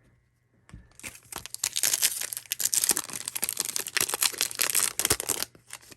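Foil trading-card pack wrapper crinkling and tearing as a pack is opened, a dense crackle that starts about a second in and stops shortly before the end.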